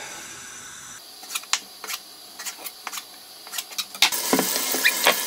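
Kitchen knife cutting raw chicken breast on a plastic cutting board: irregular sharp taps as the blade strikes the board. About four seconds in a steady hiss comes in under the last few taps.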